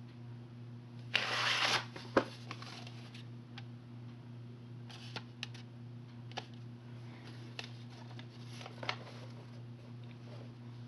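A black plastic VHS tape and case being handled: a short rustling slide about a second in, then a sharp click, followed by scattered light clicks and taps. A steady low hum runs underneath.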